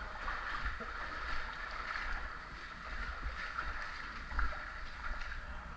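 Water in a cave pool sloshing and lapping as someone wades through it.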